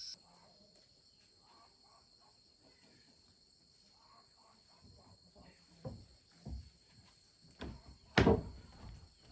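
Faint distant voices, then four dull thumps spread over a few seconds, the last and loudest about eight seconds in.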